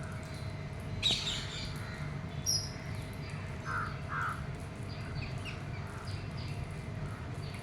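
Birds calling: a few short, harsh calls and some higher chirps, over a steady low background rumble.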